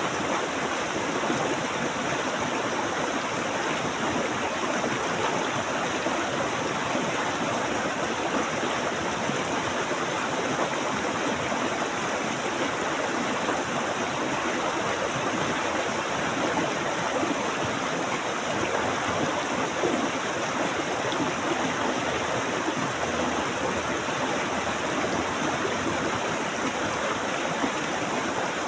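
Stream water flowing steadily, a continuous rushing wash with no breaks or separate splashes.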